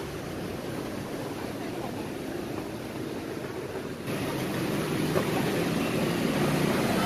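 Steady street background noise with a traffic rumble and no distinct events. It changes abruptly about four seconds in to a slightly louder, busier din.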